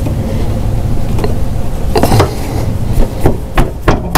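Short metallic clicks and knocks, several in quick succession in the second half, from a deck tension spring and rod being worked onto the mower deck linkage by hand, over a steady low rumble.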